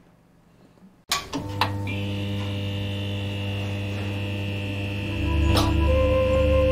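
Electric hum and buzz of a neon-sign sound effect, starting suddenly about a second in, with a couple of short crackles and growing louder and pulsing near the end.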